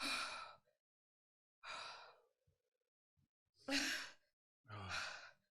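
A person sighing and blowing out heavily four times, breathing hard through the mouth against the burn of a super-hot chip.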